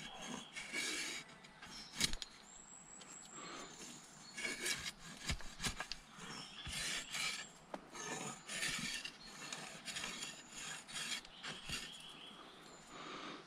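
Repeated irregular rubbing and rasping strokes along the toothed steel blade of a folding pruning saw, with a sharp click about two seconds in.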